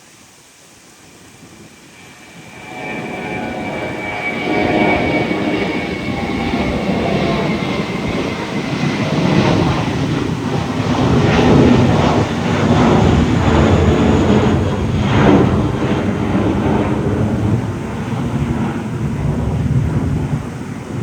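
Boeing 737 MAX 8 jet airliner's CFM LEAP-1B engines passing close by, the noise rising sharply from quiet about two and a half seconds in to a loud, rough roar with a high whine that slowly drops in pitch.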